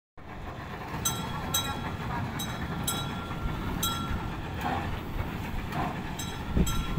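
Replica heritage tram running on its rails: a steady low rumble with sharp metallic clanks that ring briefly, mostly in pairs about half a second apart.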